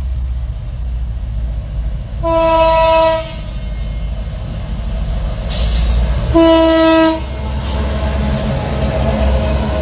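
Train horn sounding two blasts, each just under a second long, about four seconds apart, over a steady low rumble of the train. After the second blast the noise of the train running past grows.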